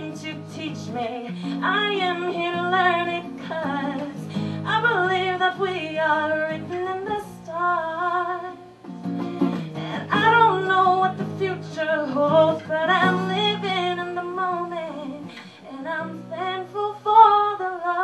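A woman singing a melody in phrases over her own strummed acoustic guitar.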